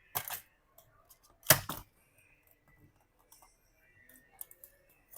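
Two sharp plastic clicks, the louder one about a second and a half in, with faint small ticks after them, as a tool prises up the melted plastic studs that hold a laptop keyboard in its frame.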